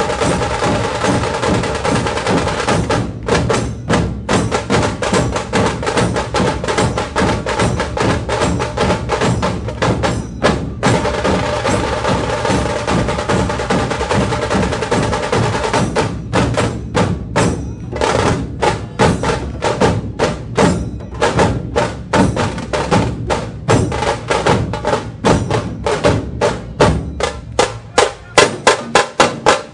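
Dhol-tasha ensemble playing: a massed group of large barrel-shaped dhol drums with tasha drums, beaten together in a fast, driving rhythm. The strokes run densely in the first half, with brief pauses a few seconds in and again around ten seconds, then turn into more spaced, accented beats from about halfway, with the loudest hits near the end.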